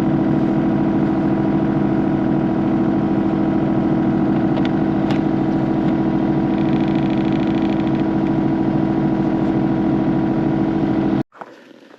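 Excavator engine running steadily at constant speed close by. It cuts off abruptly about eleven seconds in.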